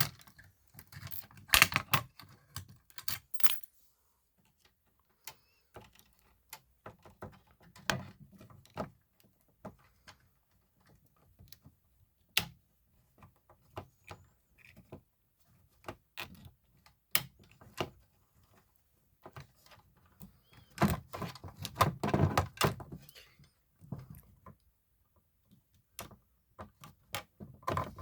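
Scattered clicks, taps and small rattles of hard objects being handled. They come in a busier cluster near the start and again about three-quarters of the way in, with isolated clicks between.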